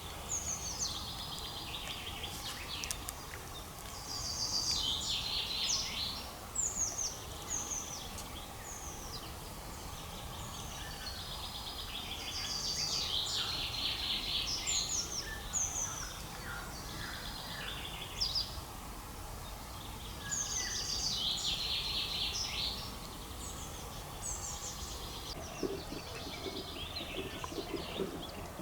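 Songbirds singing in repeated bursts of song every few seconds, over a steady low background hiss.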